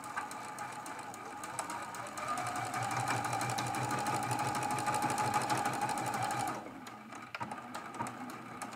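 Sewing machine stitching, running faster and louder about two seconds in, then stopping a couple of seconds before the end: a short top-stitched seam closing the turning opening of a lined stocking.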